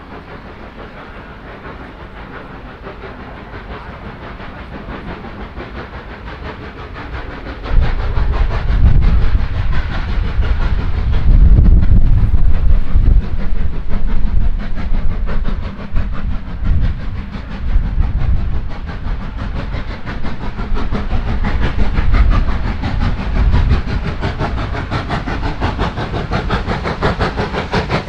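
Steam locomotive and train approaching and passing close by. The sound builds gradually, turns suddenly loud with a heavy rumble about eight seconds in, then settles into a fast, steady rhythmic clatter.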